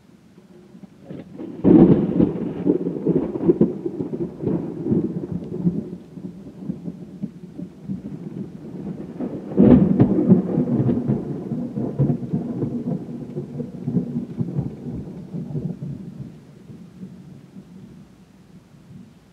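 Two loud claps of thunder, one about two seconds in and one about ten seconds in, each breaking suddenly and then rumbling on for several seconds before fading.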